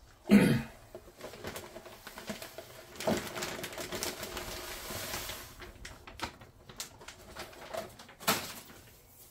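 Crushed malt poured from a plastic bag into a brewing vessel of mash water: the bag crinkles and the grain runs in with a steady hiss from about three to five and a half seconds. Two sharp knocks stand out, one just after the start and one near the end.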